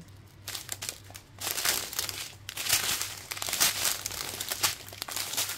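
Small plastic bags of diamond-painting drills crinkling and rustling as they are handled and turned over, in irregular bursts, over a faint steady low hum.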